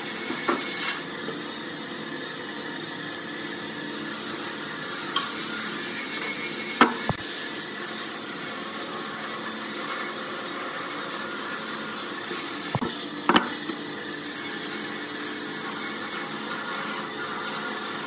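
Steady workshop background noise with a few sharp taps, two about seven seconds in and two more around thirteen seconds, as a steel square and ruler are handled against hardwood blocks on a wooden workbench.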